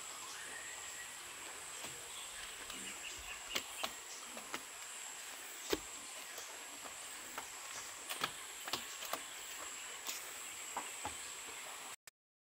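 Steady high-pitched insect chorus, with scattered light taps and knocks over it.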